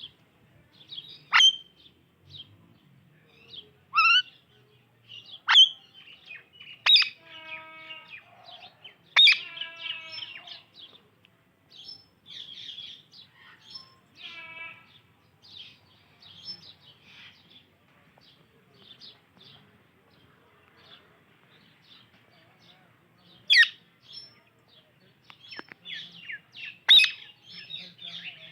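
Indian ringneck and alexandrine parakeets chirping and calling: several loud, sharp shrieks that sweep quickly in pitch, a couple of harsher rasping calls, and softer twittering between them.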